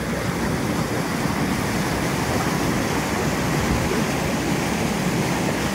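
Steady rush of floodwater pouring over a dam spillway and its wooden boards, with the lake running high over the spillway crest.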